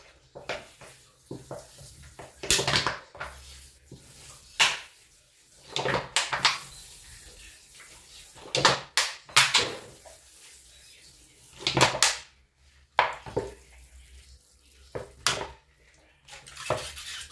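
A thin plastic drinking bottle with needle-pierced holes, squeezed again and again to squirt jets of water onto potting soil. There is a short crackle-and-spray burst every second or two.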